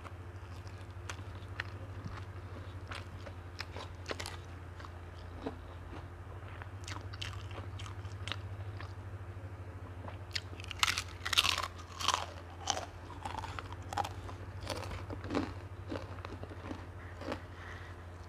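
Close-miked eating sounds: a person chewing and crunching on chicken, with scattered small crunches and a run of louder crunches and bites a little past halfway, over a steady low hum.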